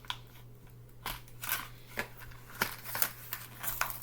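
Glued-in knife packaging being cut and pried at: a string of sharp plastic clicks and snaps with rustling, about one or two a second.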